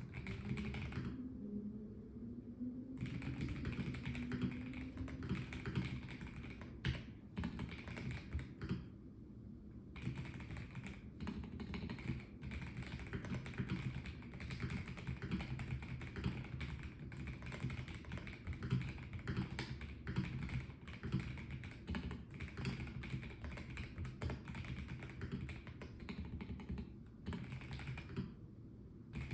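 Typing on a Melgeek Mojo84 plastic-case mechanical keyboard: dense runs of keystrokes, with short pauses about a second in, around nine seconds in and near the end.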